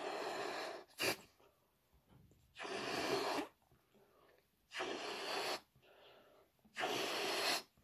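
A balloon being blown up by mouth: four long puffs of breath into it, about one every two seconds, with quiet pauses between, and a short sharp sound about a second in.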